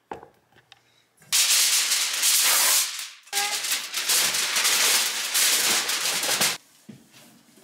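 A sheet of aluminium foil crinkling as it is handled and laid over a roasting pan: a loud crackling rustle in two stretches, one of about two seconds and one of about three, starting a little over a second in.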